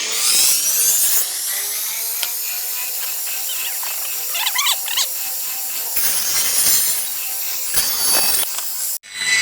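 Power wood-cutting saw running with a steady motor whine, its blade cutting into wood in several rasping bursts.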